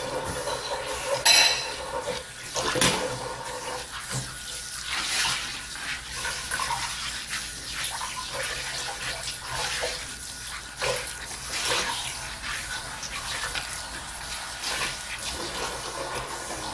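Dishes being washed by hand at a sink: water running and splashing, with scattered clinks and knocks of dishes, one ringing clink about a second in.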